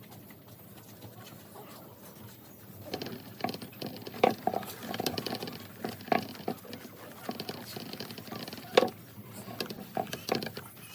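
Dry straw and coconut husk fibre rustling and crackling as it is handled and woven. The sound comes in as irregular clicks and rustles about three seconds in, after a quiet start.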